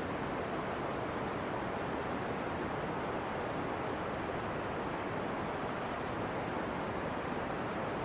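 Steam and gas venting from the Pisciarelli fumarole: a steady, even rush of noise that does not change.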